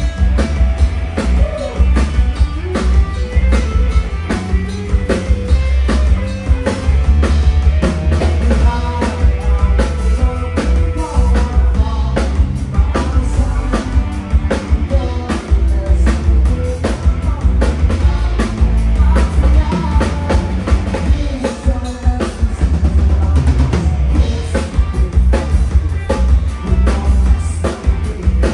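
Live rock band playing: a drum kit keeps a steady beat over heavy bass, with guitar and voice above.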